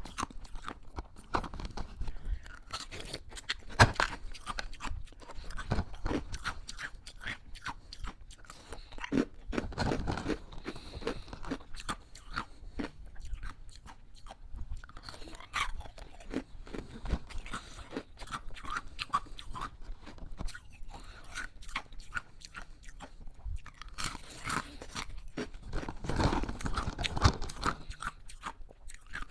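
Person chewing hard ice: repeated, irregular crunching and cracking of ice between the teeth, with a denser, louder run of crunches near the end.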